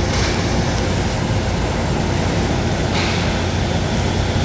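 Steady low rumble of inline hockey play: skate wheels rolling on the plastic sport-court floor amid the hall's background noise, with two short clacks about three seconds apart.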